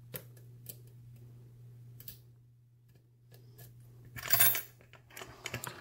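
Lock picks working in the keyway of a small solid brass padlock: scattered faint metal ticks and clicks, with a short metallic clinking of the tools about four seconds in.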